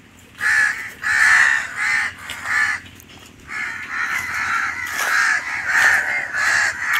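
Crows cawing over and over, a string of short harsh calls with a brief pause about three seconds in.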